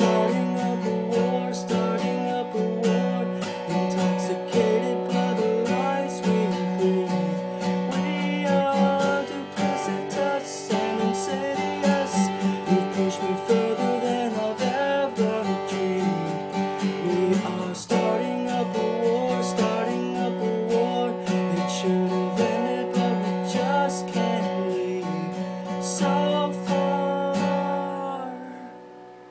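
Acoustic guitar with a capo strummed in steady chords under a man's singing voice; near the end the playing stops and the last chord fades away.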